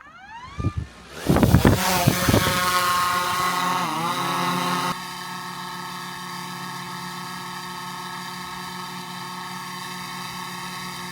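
DJI drone's propeller motors spinning up with a rising whine, then loud propeller noise with a few low thumps as it lifts off. About five seconds in the sound drops suddenly to a steadier, quieter hover hum made of several steady tones.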